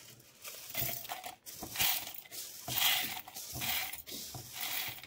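Dry-roasted urad dal, chana dal and dried red chillies pouring from a metal pan into an empty stainless steel mixer-grinder jar, the hard grains rattling against the steel in about five surges.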